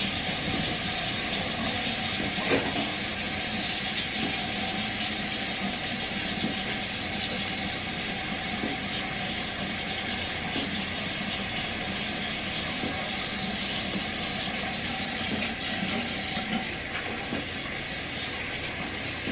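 Bathroom sink tap running steadily, a continuous watery hiss, while a face is being washed.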